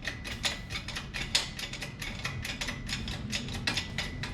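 Hand ratchet wrench clicking rapidly and steadily, about six to seven clicks a second, as it is worked back and forth.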